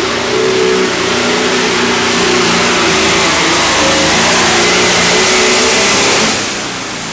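Modified John Deere 6030 diesel pulling tractor's engine running at full throttle under heavy load as it pulls the weight-transfer sled, loud and steady. The level falls off about six seconds in.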